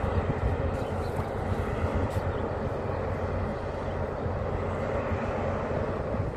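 A steady low engine drone that holds even throughout, with no distinct knocks or changes.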